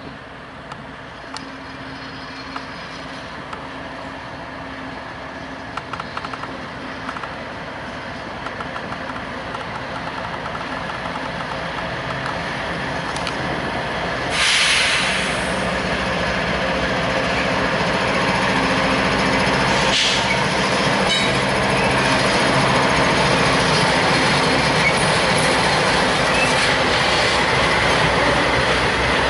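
Union Pacific diesel-electric locomotives heading a double-stack container train come closer and pass at close range. Their engines run steadily and grow louder throughout. A brief burst of hiss comes about halfway through, as the lead unit goes by.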